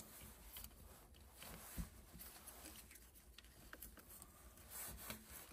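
Near silence broken by faint handling noises: light clicks and rustles of cables being tucked and clipped onto an aluminium smartphone cage, with a soft thump a little under two seconds in.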